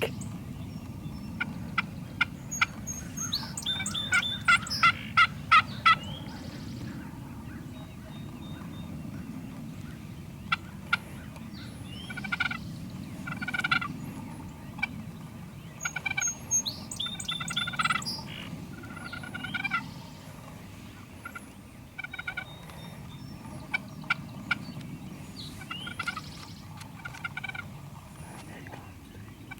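Wild turkey gobbling in several bouts of quick rattling notes, the loudest about five seconds in, with songbirds chirping.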